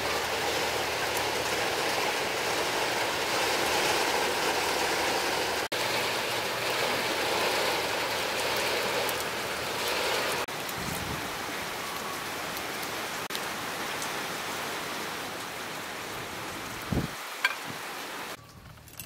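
Steady rain falling, an even hiss that drops away near the end, with a few short knocks just before it stops.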